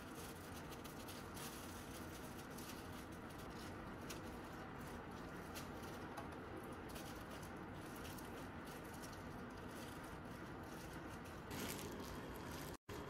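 Faint food-prep handling sounds: gloved hands patting and spreading cooked rice on a sheet of laver and laying fillings on it, soft scattered taps and plastic-glove rustle over a steady background hiss. The sound cuts out for an instant near the end.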